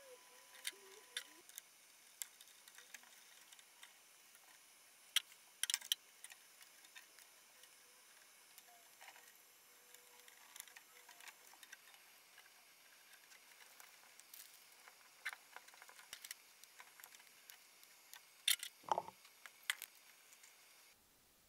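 Scattered small clicks and taps of wiring being fitted by hand in an electrical enclosure: wires and crimped terminals pushed onto switch tabs and into terminal blocks. The sharpest clicks come in a cluster about five seconds in and again near the end, over a faint hiss.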